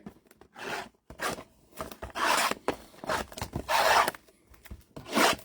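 Card packaging handled and opened: about five short scraping, rubbing strokes of cardboard and wrapper.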